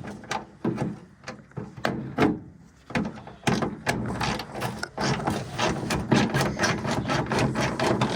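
Hand tools working on car parts: a few separate metallic clicks and knocks, then from about three and a half seconds in a fast, continuous run of clicks like a ratchet wrench loosening fasteners.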